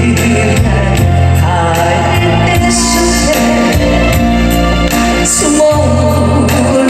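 Korean trot ballad performed by a female singer with a band backing: a held, bending vocal line over steady bass and keyboard chords with regular cymbal hits.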